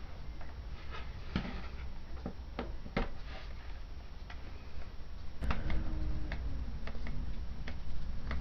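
Irregular small clicks and taps of a compact camera's plastic casing and parts being handled and prised apart during disassembly. About halfway in, a low wavering tone joins the clicks.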